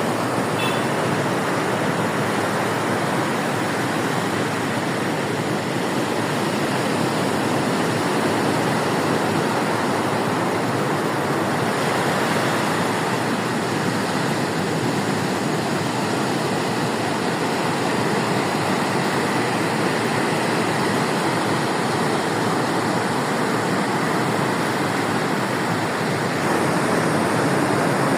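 Stormy sea surf: breaking waves as a continuous rush of noise, getting a little louder near the end.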